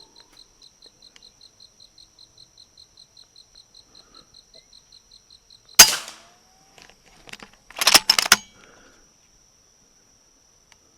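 A .22 FX Impact PCP air rifle fired once at a squirrel about six seconds in, a sharp crack, followed about two seconds later by a quick cluster of clacks. Before the shot, an insect chirps softly about four times a second.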